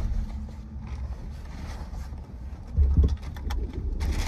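Bags and gear being handled in a car's open trunk: a low rumble, a few light knocks about three seconds in, and a rustling hiss near the end.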